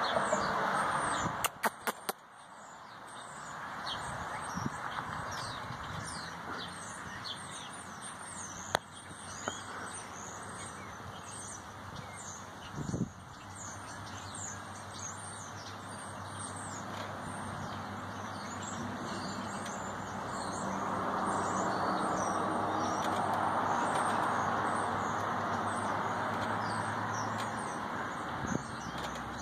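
Many small birds chirping over and over, short quick notes, above a steady rushing background noise. A few sharp clicks sound about two seconds in, and a single dull thump near the middle.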